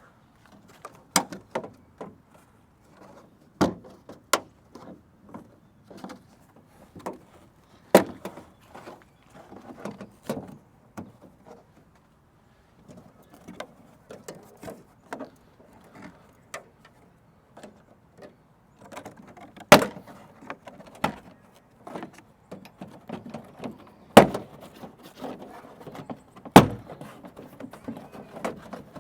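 Plastic interior trim panel on an Audi being pulled off by hand: a string of sharp clicks, snaps and knocks as its retaining clips pop free, with handling rustle between. The loudest snaps come in the middle and towards the end.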